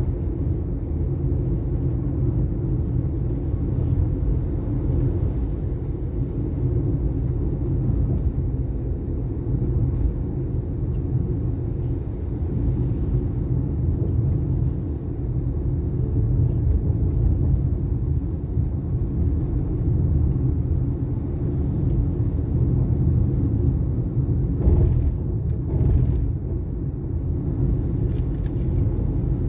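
Steady low rumble of a vehicle travelling along a highway, engine and road noise. Near the end come two brief sharper sounds about a second apart.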